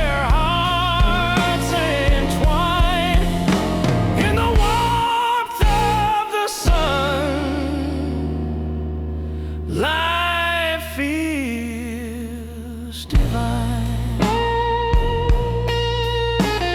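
Background song: a sung melody over guitar and drums. The drums drop out for a stretch in the middle, leaving a held bass note under the voice, and come back near the end.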